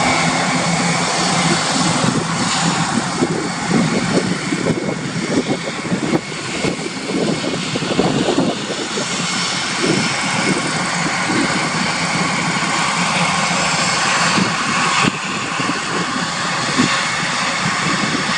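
Airbus A400M's four TP400 turboprop engines running as it taxis: a loud, steady propeller drone and turbine whine, with an uneven, fluttering rumble for several seconds in the middle.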